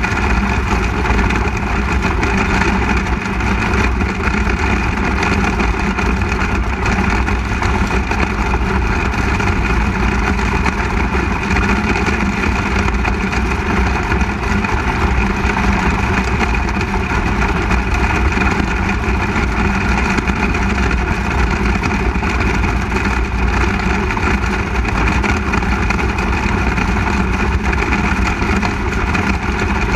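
Onboard sound of a 360 sprint car's V8 engine running at a steady, even pitch, heard from a camera mounted on the car, with other sprint cars' engines mixed in.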